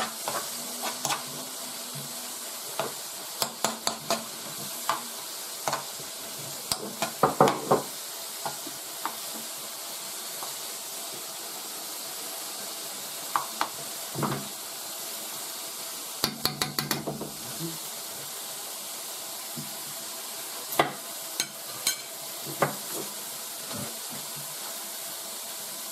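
Chopped shaggy ink cap mushrooms sizzling steadily in a non-stick wok, with a metal spoon scraping and knocking against the pan in scattered clusters as they are stirred. The sizzle is the sound of the mushrooms now frying rather than boiling in their own juices.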